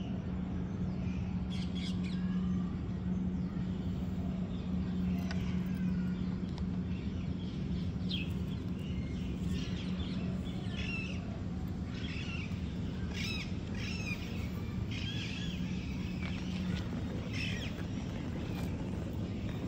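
Birds chirping in short, repeated calls over a steady low hum.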